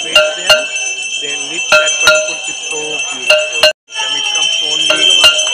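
Ganga aarti bells ringing continuously, with loud paired strikes about every second and a half and voices chanting underneath. The sound drops out for a moment a little before four seconds in.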